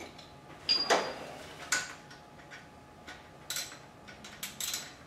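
Metal hand wrench clicking and knocking on the clamp bolt of a scooter's handlebar stem as the tight bolt is worked loose. There is one louder metallic knock about a second in and a run of quick ticks near the end.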